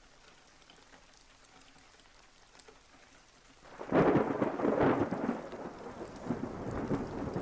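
Near silence, then about four seconds in thunder rumbles in over steady rain, the rain going on after the loudest part of the thunder.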